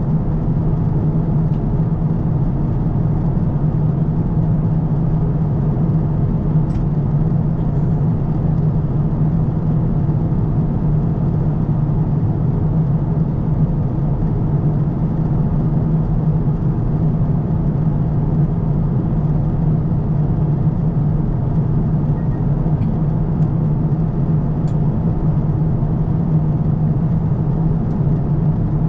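Steady cabin noise inside an Airbus A350-1000 airliner: an even rush of air with a low drone from the aircraft and its engines, unchanging throughout. A few faint clicks sound over it.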